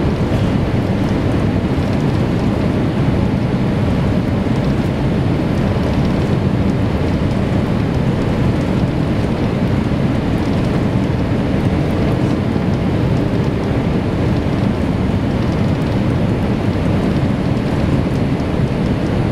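Steady engine and airflow noise inside the cabin of a Boeing 787-8 on final approach, an even low rumble that does not change.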